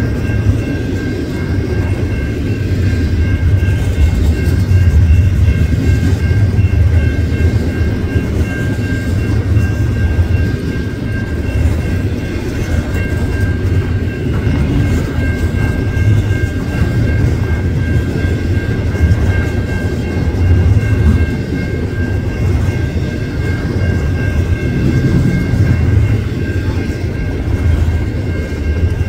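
Container freight train cars rolling past: a steady low rumble of wheels on rail, swelling and easing slightly every few seconds, with a few steady high tones over it.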